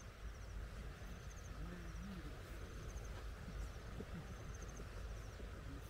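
Seaside evening ambience: a steady low rumble under a short, rapid, high trilled chirp from a small creature, repeating about once a second. Faint distant voices murmur underneath.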